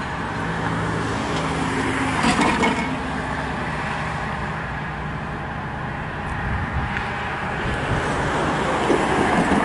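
Road traffic at a level crossing: a vehicle engine hums steadily with tyre and road noise as cars pass, and there is a brief rattle of clicks about two seconds in.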